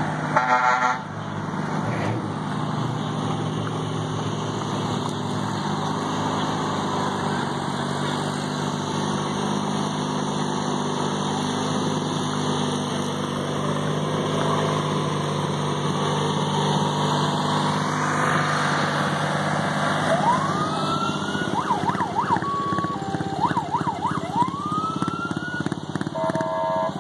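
Vehicle engines running steadily, with a short horn blast right at the start. From about twenty seconds in, sirens wail, rising and sweeping quickly up and down several times.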